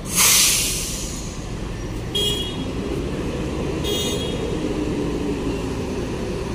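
A coach's diesel engine running as the bus pulls away, with a loud burst of air hiss at the start that fades within a second. There are two short horn toots, about two and four seconds in, and the engine note rises near the end as it accelerates.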